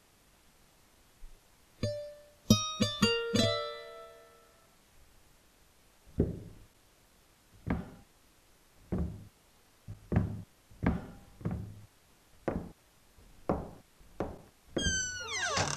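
A few plucked string notes ring out about two seconds in. They are followed by a run of soft footsteps, about one a second, each sliding down in pitch. Near the end a door creaks open with a falling pitch.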